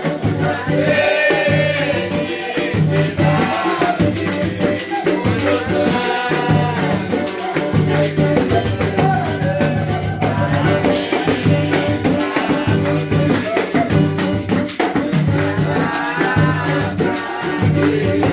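Artcelsior Luxo cuíca played 'roncando', with a deep growl: short, repeated low tones, and every few seconds higher squeaking cries that glide up and down in pitch.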